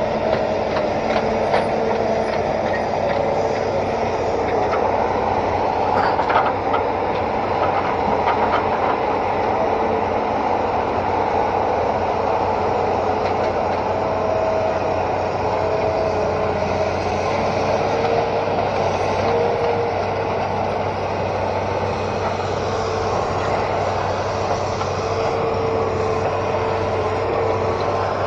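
Hitachi Zaxis 210 amphibious excavator running steadily as it travels on its pontoon tracks, a constant engine hum with a couple of steady whining tones and rattling, clanking knocks from the tracks, most frequent in the first several seconds.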